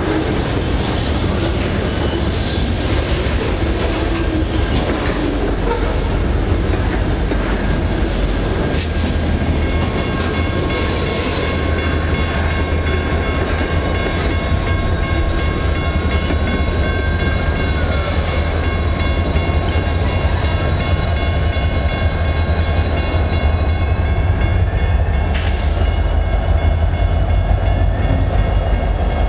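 Freight cars (a covered hopper, then empty flatcars) rolling past at close range: a steady low rumble with wheel clicks over the rail joints. From about ten seconds in, several high, steady wheel-squeal tones ring out, one rising in pitch near the end.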